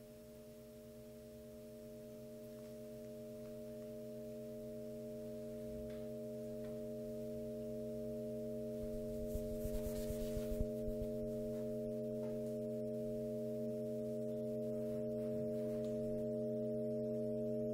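Sustained electronic drone of several steady pure tones stacked together, from a guitar and MIDI-controller setup, swelling slowly louder. Brief rubbing and crackling noises come about halfway through.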